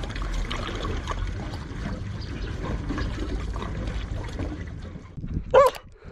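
Water pouring from a large upturned bottled-water jug into a plastic container. A dog barks once near the end.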